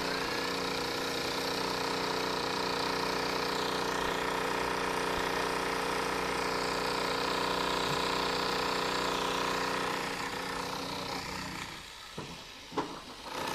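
Corded electric demolition hammer breaking up a concrete and brick wall top, running steadily, then dying away about eleven seconds in, followed by a couple of sharp knocks.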